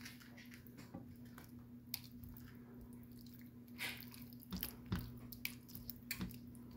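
Plastic spatula stirring a thick, creamy sauce of chicken and vegetables in a nonstick frying pan: soft wet squelching and scraping, with a few louder knocks against the pan about four to five seconds in. A faint steady hum runs underneath.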